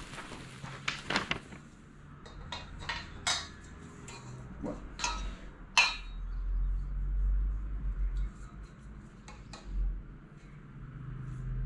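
Scattered clicks, clinks and knocks of the pieces of a flat-pack microwave shelf being handled and fitted together during assembly, with a low rumble from about halfway.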